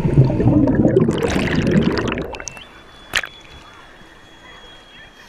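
Rushing, sloshing water, loud at first and fading away about two seconds in. A sharp click follows about three seconds in, with a faint steady high tone after it.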